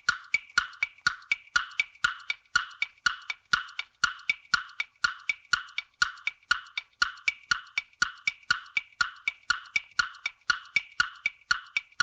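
Countdown timer sound effect: a quick, even wood-block tick-tock, about four ticks a second, alternating higher and lower, counting down the time left to answer a quiz question.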